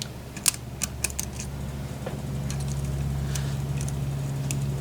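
A few small metallic clicks and taps of lock picks and a tension wrench working in a padlock's keyway. Under them runs a steady low hum that grows a little louder about two seconds in.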